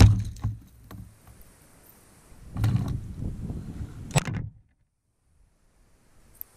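Knocks and handling noise against a kayak's plastic hull, with a sharp click about four seconds in, then dead silence for over a second.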